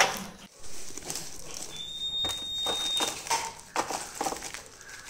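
Plastic-wrapped peanut chikki pieces being handled: irregular crinkles and light taps as the packets are picked up off a steel tray and dropped into a plastic jar. A thin high steady tone sounds for about a second in the middle.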